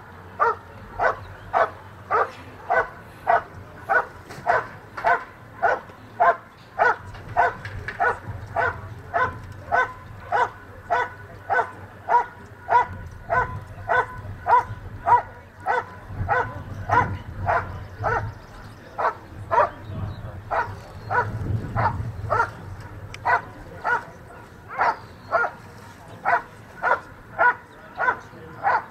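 German shepherd barking steadily and rhythmically, a little under two barks a second, at a helper hidden in a blind: the hold-and-bark of protection work, the dog holding the helper in place by barking rather than biting.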